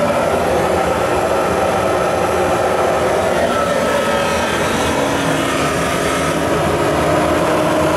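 Car heater blower fan motor running on a bench test, a steady, even rush of air and motor noise with no change in speed.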